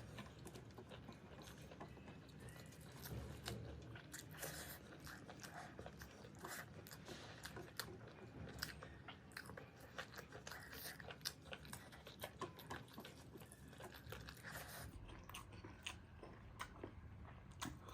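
A person eating close to the microphone: quiet chewing with many small, irregular crunches and wet mouth clicks, as of crisp pickle, cucumber or meat being bitten and chewed.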